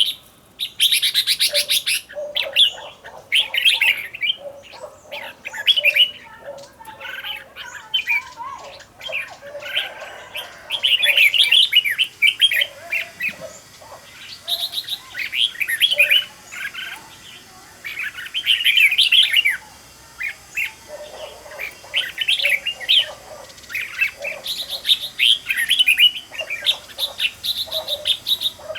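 Red-whiskered bulbuls singing: short, bright, chirpy song phrases repeated every second or two, with brief pauses between them.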